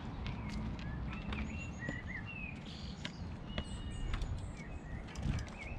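Small birds chirping and twittering in short repeated calls, over a steady low rumble, with a few faint clicks.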